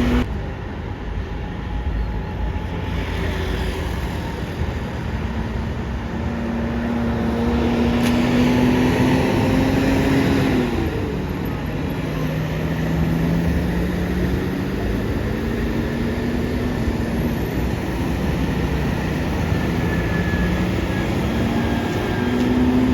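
Bus diesel engine pulling away through traffic, its pitch climbing steadily, dropping at a gear change about ten seconds in, then climbing again.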